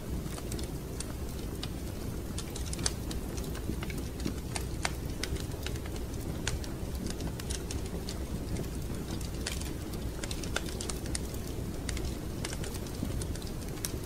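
Fireplace crackling: irregular sharp pops and snaps from burning wood, several a second, over a steady low purring of a cat.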